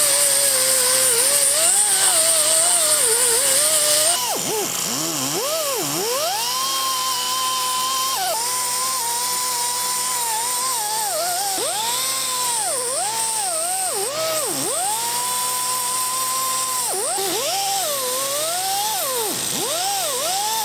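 Right-angle die grinder with a small wire wheel whining, its pitch sagging and recovering over and over as the wheel is pressed into the metal. For about the first four seconds there is a loud scratchy hiss from the wire brushing the grill's bowl; after that the wheel scrubs a rusty cast-iron grill grate.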